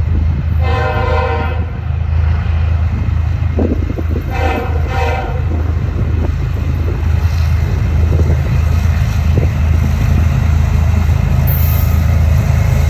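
Approaching freight train's diesel locomotive sounding its horn twice, each blast about a second long, the first just after the start and the second about four seconds in, over a steady low rumble of the train that grows slightly louder as it nears.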